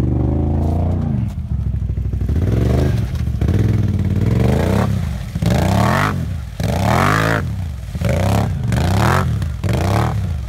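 ATV engine revving up and down over and over as the quad churns through a muddy bog, with scattered knocks and scraping.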